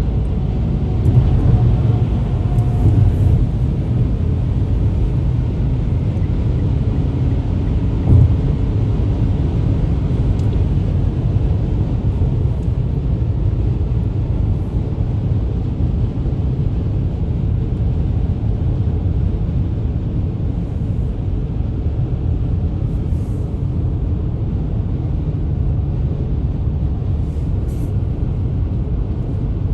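Steady low rumble of road and engine noise inside a moving car on the highway.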